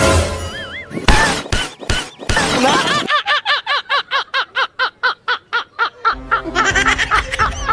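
Edited comedy sound effects: a few sharp crashing strikes, then a fast, even run of short laugh-like cries, about five a second, over music.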